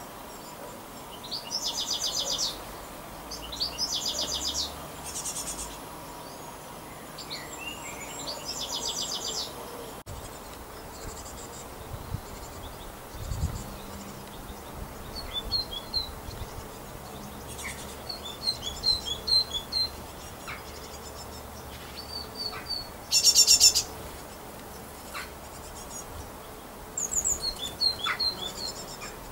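Great tits calling: several harsh, buzzy rattling calls of about a second each, the loudest about two-thirds through, with short sharp chips between them.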